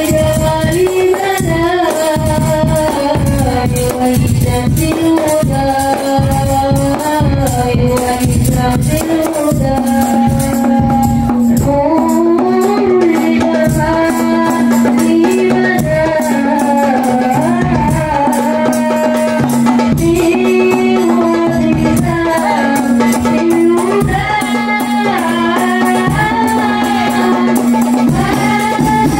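Hadrah Banjari ensemble performing sholawat: voices sing a winding melody over fast, interlocking hand-drumming on rebana frame drums and a large bass drum.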